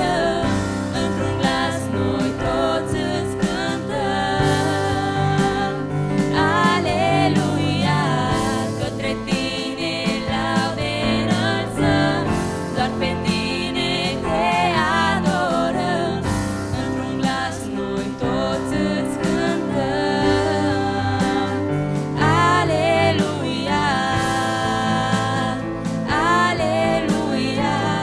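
Two women singing a Romanian Christian worship song with vibrato, over held keyboard chords.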